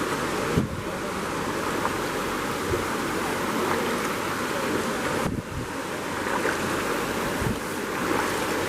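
Steady rushing of river water, an even hiss across all pitches that dips briefly twice.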